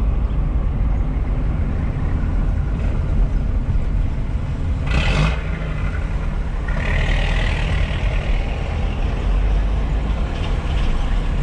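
Car driving in traffic, heard from inside the cabin: a steady low engine and road rumble. A short burst of hiss comes about five seconds in, and a longer hiss follows a second or two later and fades out.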